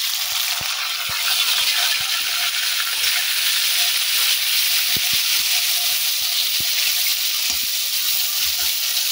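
Chopped tomatoes and green chillies sizzling in hot spiced oil in a metal kadai: a steady frying hiss that starts as they hit the oil. A few light clicks come from a metal spoon stirring them.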